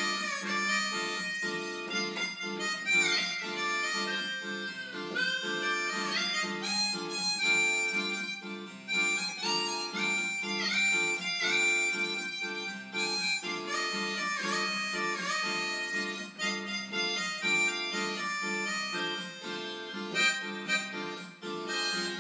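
Yamaha electronic keyboard playing through loudspeakers: a lead melody with sliding notes over a steady held chord.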